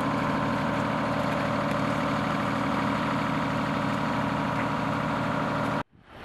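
Mercedes-Benz fire engine's diesel engine idling steadily, then cutting off suddenly near the end.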